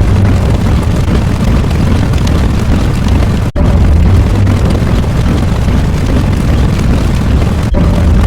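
Loud, continuous deep rumbling sound effect, played as a loop that restarts with a brief break about three and a half seconds in and again near the end.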